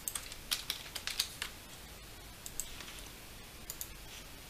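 Faint clicks from a computer keyboard and mouse: a quick run of key taps in the first second and a half, then a few scattered clicks.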